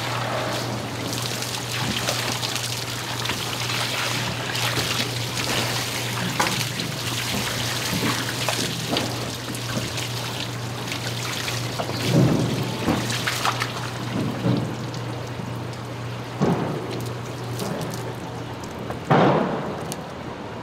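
Whole salmon being scaled on a wet board under running water: a steady wet hiss and splash full of small scraping strokes, over a constant low hum. A few louder knocks come about twelve and nineteen seconds in.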